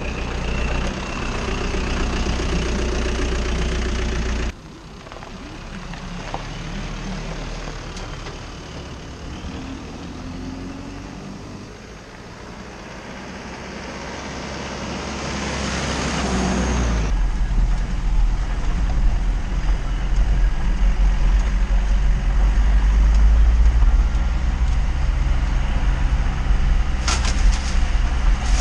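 Small flatbed truck's engine running as it drives, heard from the roadside as it comes closer and grows louder, then from about halfway a loud, deep rumble from inside the cab as it drives along a dirt track, with a few rattles near the end. The sound changes abruptly twice where the shots cut.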